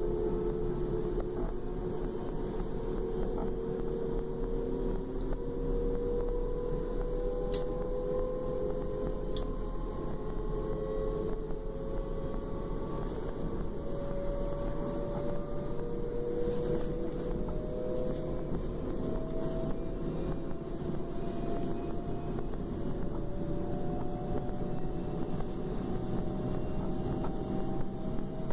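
Inside a DB Class 425 electric multiple unit: the whine of the traction drive climbing slowly and steadily in pitch as the train gathers speed, over the rumble of the running gear. Two short sharp clicks come about seven and nine seconds in.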